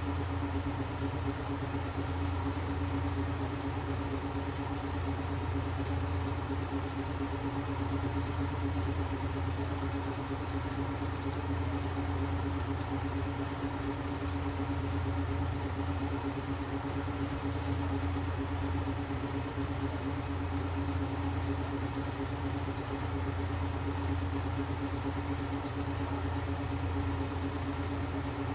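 KiHa 54 diesel railcar's engine idling steadily, a constant low hum with a steady higher drone over it.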